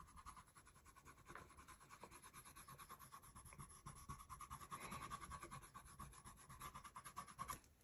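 Faint scratching of a coloured pencil stroking across drawing paper, barely above near silence.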